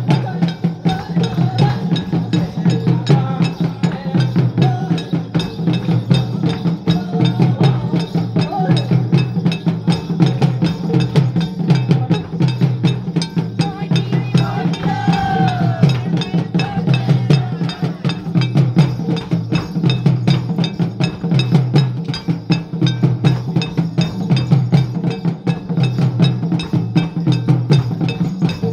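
Santhal folk dance music: drums played in a fast, steady, unbroken rhythm. A brief wavering melodic line rises over the drumming about halfway through.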